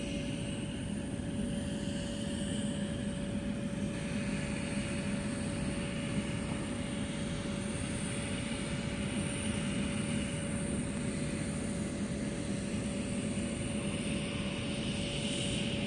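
Aircraft running on an airport apron: a steady, unbroken drone with a constant hum.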